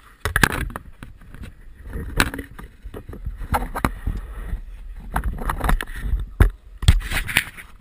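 Scattered knocks, scuffs and clicks of a bobsleigh crew climbing out of their stopped two-man bob, picked up close on a helmet camera, over a low rumbling noise.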